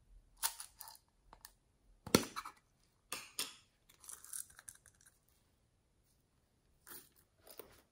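Plastic case being handled and opened by hand: a series of short plastic clicks and rustles, the sharpest about two seconds in.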